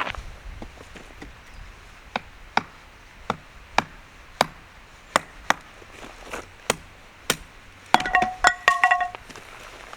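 Knife chopping on a cutting board, single sharp cuts about one or two a second, then near the end a quick run of ringing clinks.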